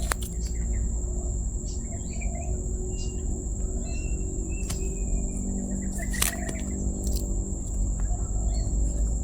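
Forest ambience: a steady high-pitched insect drone, with faint short bird chirps in the middle and a few sharp clicks, one loud one about six seconds in.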